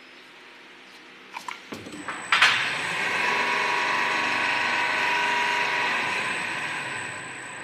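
Semi-automatic two-head flowmeter cooking-oil filling machine: a few clicks, then a sharp pneumatic clack about two seconds in, followed by a steady rushing of oil pouring through the two nozzles into plastic bottles, easing off near the end as the fill finishes.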